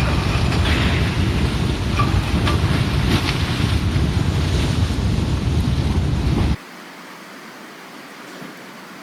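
Loud wind rumbling on the microphone with a rushing noise; it cuts off abruptly about six and a half seconds in, leaving a faint hiss.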